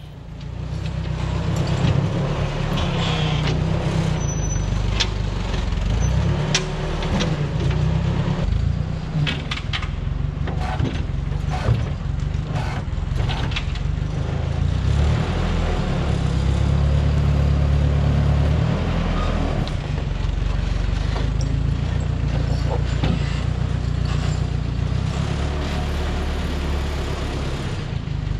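Tractor engine running steadily as it works a front grapple to pick up and carry logs, with scattered knocks and clunks throughout.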